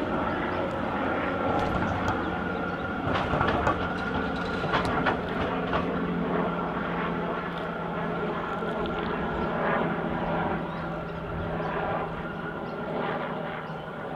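A2-class tram running slowly along its track: a steady hum with a higher whine over it, and scattered clicks from the wheels on the rails.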